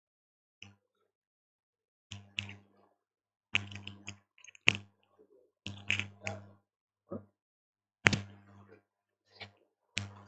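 Clip-on lavalier microphone being handled and fastened at a shirt collar: irregular clicks, scrapes and thumps of handling noise right on the mic, coming thick and fast from about two seconds in.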